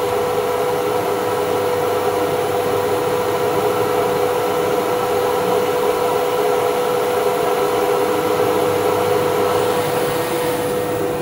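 Steady machine whir with a constant hum from a CNC router.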